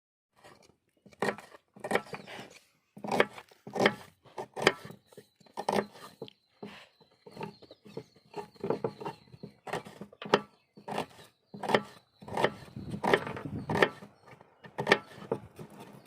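Knife chopping down onto a wooden board, a string of separate sharp strokes, irregular at about one or two a second.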